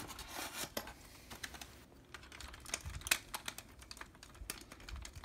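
Irregular small clicks and taps of armor pieces being handled and fitted onto the knees of a Godaikin Laserion die-cast toy robot, with the sharpest click about three seconds in.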